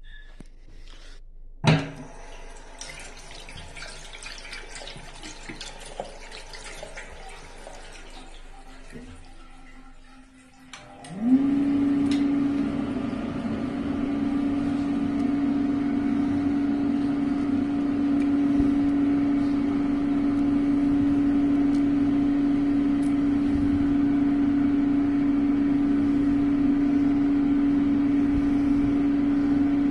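Roache 2400 Turbo electric hand dryer starting up about eleven seconds in with a quick rising whine, then running with a steady motor hum and rushing air. Before it starts there is only low-level noise and a single sharp click about two seconds in.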